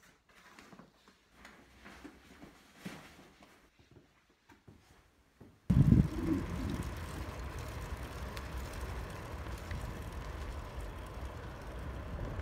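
Faint rustling and clicks as a backpack is packed. About six seconds in this gives way to the steady rush of a bicycle ride on asphalt: tyre and wind noise, loudest in a brief buffet right at the start.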